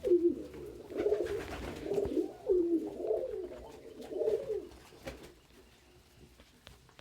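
Domestic pigeon cooing: a run of about six rolling, wavering coos that stops about five seconds in, followed by a few faint ticks.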